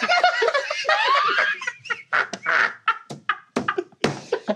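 A group of people laughing hard together: overlapping laughter at first, breaking after about a second and a half into short, breathy bursts of laughter.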